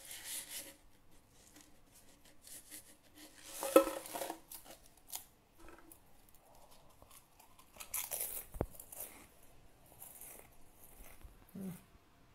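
Stacked potato crisps (Pringles) being bitten and crunched close to a phone microphone, in several short crackling bursts, the loudest about four seconds in.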